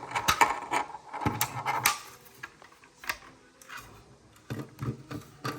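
Clicks, knocks and rattling of a fire alarm pull station being worked by hand with its reset key, as it is being forced open to reset it. A quick run of clicks comes in the first two seconds, then scattered single clicks.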